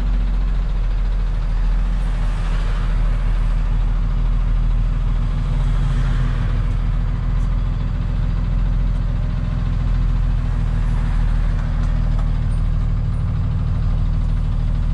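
Rollback tow truck's engine drone and road noise, heard inside the cab while driving; steady throughout.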